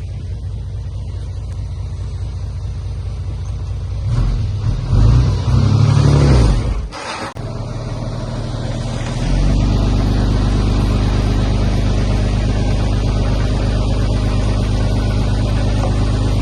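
Heavy diesel engine of earthmoving machinery running, revving up and down from about four seconds in, dropping away briefly, then settling into a louder steady run from about nine seconds in.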